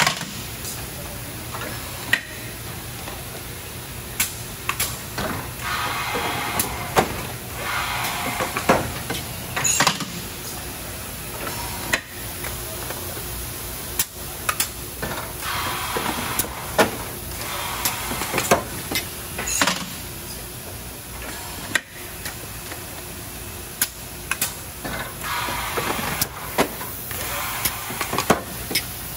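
Industrial machinery in a factory: a steady low hum with repeated short hisses, like air being let out, every few seconds, and scattered sharp clicks and clunks.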